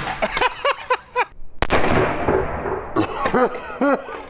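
A car airbag's pyrotechnic inflator is set off electrically and fires with a single sharp bang about one and a half seconds in, with a short smear of echo after it. Excited laughter runs before and after the bang.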